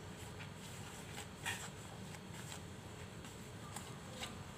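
Flour and egg being mixed by hand into pastel-skin dough in a plastic bowl: faint scraping and rubbing with a few light clicks of fingers against the bowl, the clearest about one and a half seconds in, over a low steady hum.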